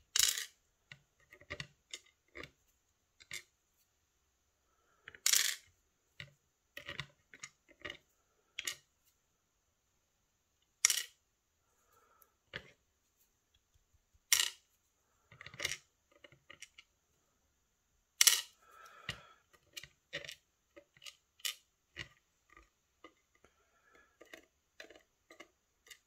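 Small sharp clicks and metallic taps from a brass lock cylinder being taken apart by hand: tweezers, pins and springs clicking against the cylinder and the pin tray. The clicks are irregular, with about half a dozen louder ones spread through.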